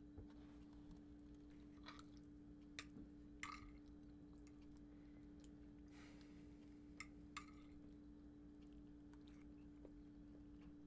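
Quiet meal at a table: faint chewing and about five soft clicks of forks against plates, over a steady low room hum.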